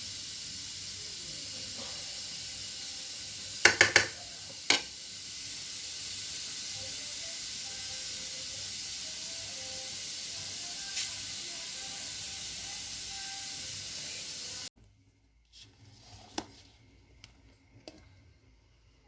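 Steady hiss of couscous cooking in a pot on the stove, with three quick clinks about four seconds in and one more just after. The hiss cuts off abruptly near the end, leaving faint clicks.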